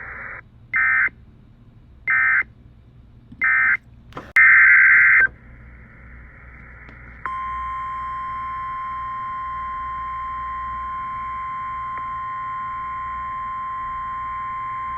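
NOAA Weather Radio EAS signalling over faint radio hiss. First come three short bursts of SAME digital data tones about a second apart, the end-of-message code. About four seconds in comes a longer SAME header burst for the next alert. From about seven seconds in, the steady 1050 Hz weather-radio warning alarm tone sounds.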